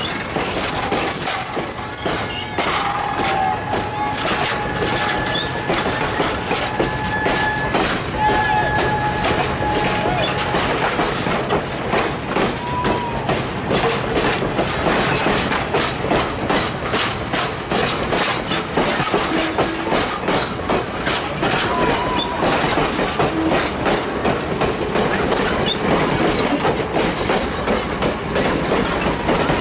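Grand Canyon Railway passenger coaches rolling slowly past as the train departs: steel wheels clicking over the rail joints, with thin, high wheel squeals during the first ten seconds or so.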